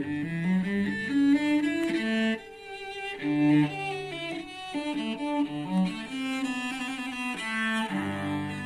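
Cello playing a melody of held, bowed notes that change pitch every half second to a second, with a brief quieter moment about two and a half seconds in.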